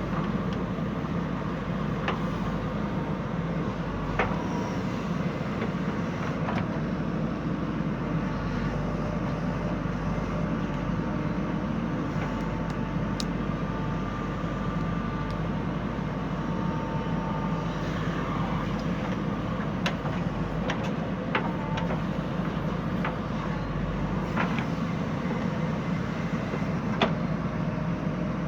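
Diesel engine of a JCB 3DX backhoe loader running steadily while it works, with a few short sharp clanks scattered through.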